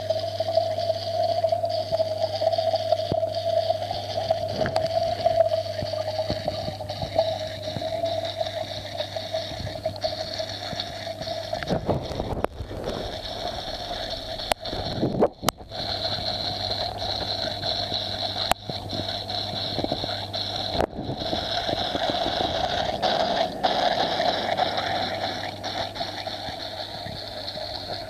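Steady mechanical hum of aquarium equipment running, with a few short clicks and brief dips in the sound around the middle.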